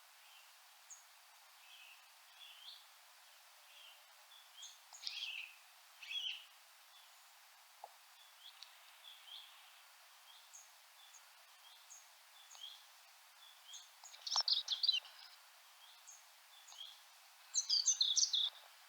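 Small birds calling: scattered short chirps and thin high ticks, with two busier bursts of quick notes, one about two-thirds of the way through and one near the end.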